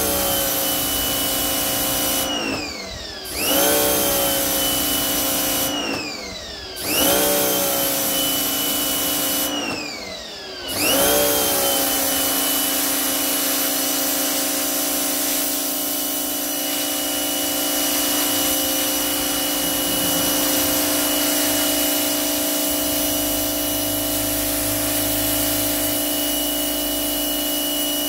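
Parkside PHD 170 D2 electric pressure washer's motor and pump running with a steady whine. Three times in the first ten seconds or so it winds down and starts again with a rising whine, as the spray gun's trigger is let go and squeezed. From about eleven seconds in it runs steadily while the jet sprays the paving.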